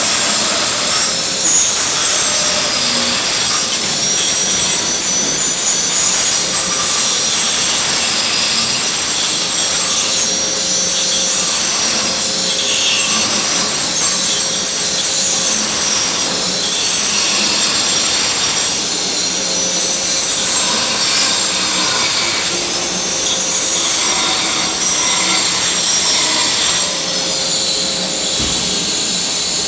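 Power tools running continuously, a noisy grinding and cutting din with high whines that rise and fall in pitch.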